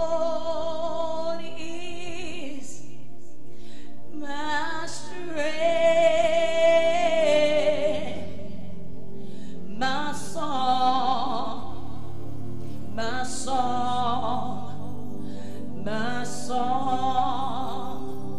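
A woman singing a slow gospel worship song solo into a microphone, in several long phrases with held notes and pitch slides, over steady held chords from the band.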